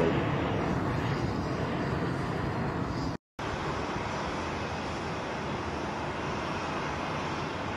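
Steady noise of airliner jet engines running on the ground, with a brief gap of silence about three seconds in.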